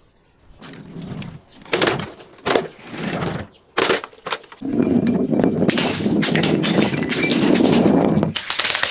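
A glass bottle breaking: a few separate cracks and snaps, then a long stretch of continuous crunching and crackling as the glass is crushed.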